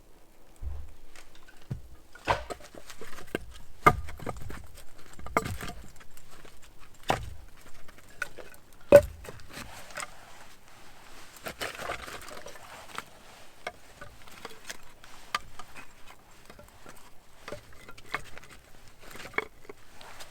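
Irregular knocks and dull thuds, roughly one every second or two, over light rustling. The loudest knock comes about nine seconds in.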